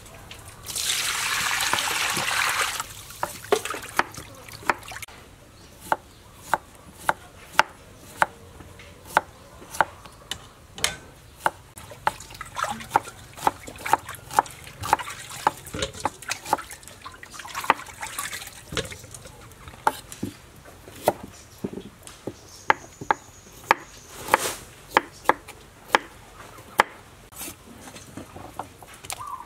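Kitchen food preparation: a rush of pouring or splashing water about a second in, lasting about two seconds, then a long run of sharp knocks and clicks, one or two a second.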